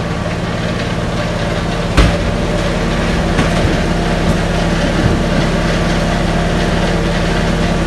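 Steady drone of an idling engine, heard inside an empty metal truck cargo box. About two seconds in there is one loud crash as a rolling utility cart with a person lying on it reaches the front wall and he tumbles off, followed by a few lighter knocks.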